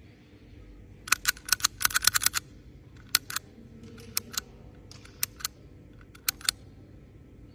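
Chrome hand-held mechanical tally counter clicked with the thumb, its count running up towards 9999. A quick run of sharp clicks comes about a second in, then single presses about once a second, each a double click as the lever goes down and springs back.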